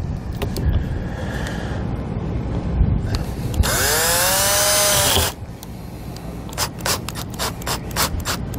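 Cordless drill with a large bit drilling a starter hole through an RV baggage compartment door: about three and a half seconds in, the motor runs for about a second and a half, its whine rising and then falling as it speeds up and slows. A run of short, light clicks and knocks follows near the end.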